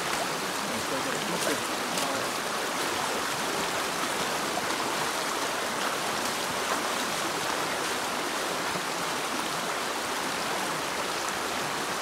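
Shallow stream running over a stony bed, a steady rush of water. About halfway through there are a few small splashes from boots wading across it.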